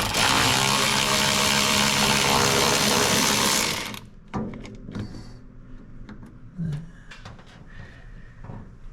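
A handheld electric power tool runs steadily for about four seconds and then stops sharply. After it come a few light clicks and knocks of tools and parts.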